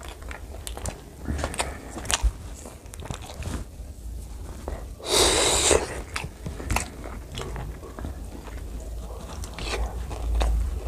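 Close-up eating sounds: a man biting and chewing pork curry with rice eaten by hand, with many short wet mouth clicks and smacks. About five seconds in comes one louder noisy sound lasting under a second.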